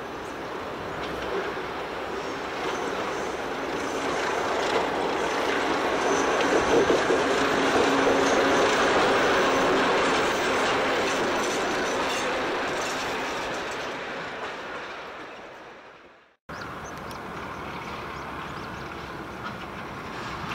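Vintage Alco diesel locomotive 844 hauling two steel passenger carriages passes by: the engine and the wheels on the rails grow louder to a peak about halfway through, then fade away. The sound cuts off about sixteen seconds in and is replaced by a quieter, steady background noise.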